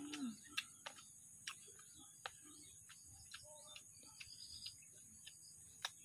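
A person chewing raw guava close to the microphone: irregular sharp clicks and crunches, with a louder one near the end as he bites into the fruit.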